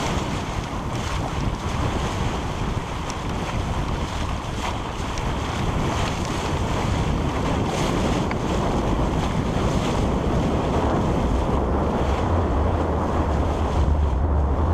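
Wind buffeting the microphone on a sailboat under way, with water rushing past the hull; the low wind rumble grows heavier near the end.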